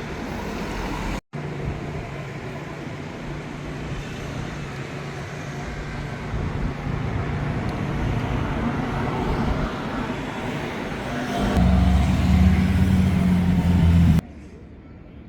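City road traffic: motor vehicles running past, with a vehicle's engine rising to its loudest about three-quarters of the way through. The sound then cuts off suddenly near the end.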